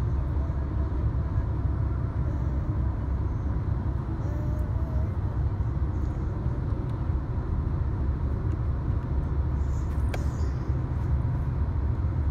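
Steady low road and engine rumble heard inside a moving car's cabin.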